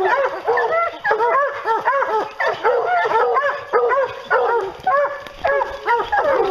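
A pack of bear hounds barking at once in rapid, overlapping barks and yips at the foot of a tree. This is the tree bark of hounds that have a bear treed.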